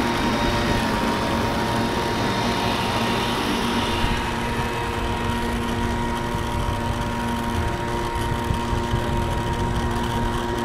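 Radio-controlled model boat motor running with a steady, even drone that holds its pitch.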